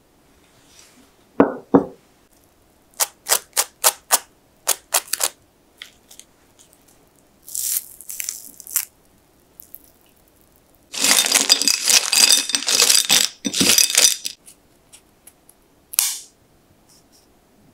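A ceramic plate knocks down onto a wooden board, then crisp deep-fried and oven-baked banana chips snap and crackle as they are broken apart by hand, with a long run of crunching in the middle and a last snap near the end.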